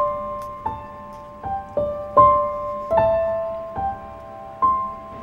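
Background piano music: a slow, gentle melody of single notes, each struck and left to ring out, roughly one or two a second.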